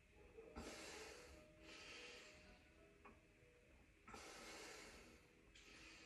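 Faint, heavy breaths through the nose, four soft swells each about a second long, as a man catches his breath after hard kicking drills while drinking from a water bottle.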